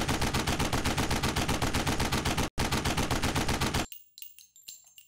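Rapid automatic gunfire, about ten shots a second, with a short break about two and a half seconds in and a stop near four seconds. It is followed by scattered light metallic clinks and a high ringing that fade away.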